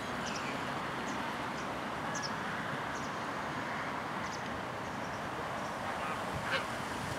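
Outdoor ambience: a steady rush of noise with short, faint high chirps about once a second. There is one sharper sound about six and a half seconds in.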